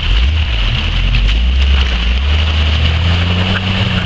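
Jeep engine running under load as it drives through deep flood water, rising in pitch about three seconds in, over the rush and splash of the water.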